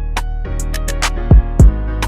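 Background hip-hop beat: a sustained melodic loop with high ticking hi-hats. Two deep kick drums slide down in pitch, about two-thirds of the way through and again shortly after.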